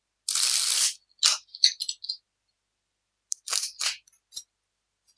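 Tarot cards being handled on a table: a short sliding swish about half a second long as a card is drawn, then several light taps and scrapes as a card is turned and laid down on the spread.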